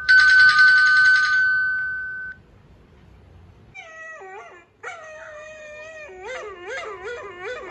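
A bell-like ringtone chime rings out and fades within about two seconds. After a short pause, several overlapping dog howls and whines waver up and down in pitch.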